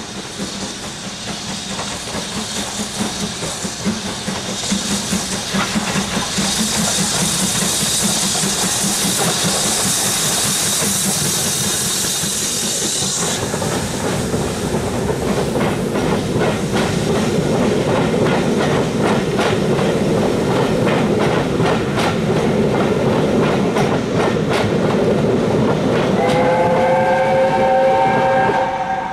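BR Standard 'Britannia' class steam locomotive hauling a passenger train at close range: a pulsing exhaust beat, with a loud hiss of steam from about six seconds in that cuts off suddenly around thirteen seconds. Then the coaches run by with a rapid clatter of wheels over rail joints and points. Near the end a whistle of several tones at once sounds.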